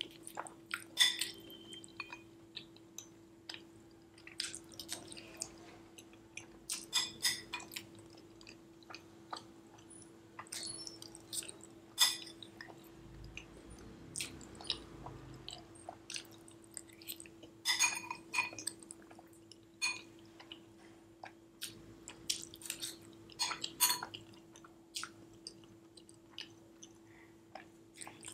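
Close-miked chewing of creamy macaroni and cheese, with wet mouth sounds and scattered sharp clicks and taps, among them a metal spoon and fork against a glass bowl. A faint steady hum runs underneath.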